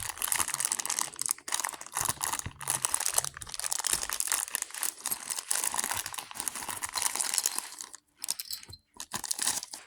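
Toy packaging crinkling and tearing as it is opened by hand, with dense crackling for about eight seconds, then a few scattered crinkles and clicks near the end.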